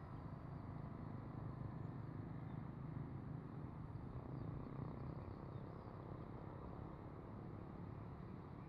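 Faint whine of the E-flite Habu STS's electric ducted fan as the model jet takes off, over a steady low rumble.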